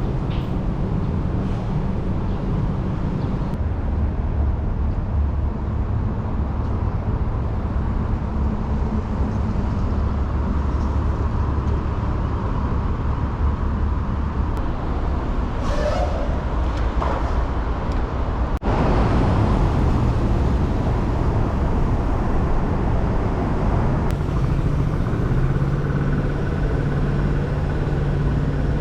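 Engine running steadily, a loud low rumble with a low hum, broken once by a sudden cut a little past halfway.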